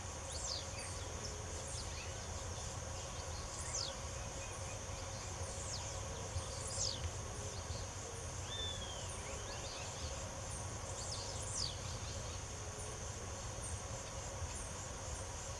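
Small birds giving short, quick down-sweeping chirps scattered throughout, over a steady high-pitched insect drone and a low background rumble.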